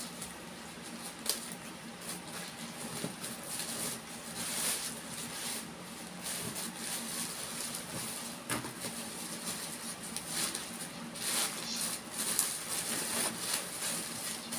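Plastic bags rustling and crinkling as wrapped packages are unwrapped by hand, with a couple of sharp scissor snips.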